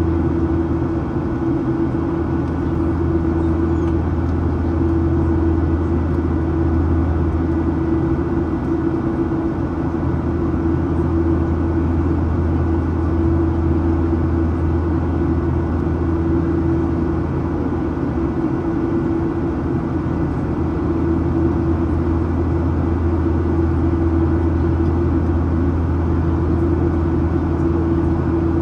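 Inside the cabin of a Boeing 737-800: steady engine and airflow noise from its CFM56-7B turbofans running at constant thrust, with an even droning tone and a low hum.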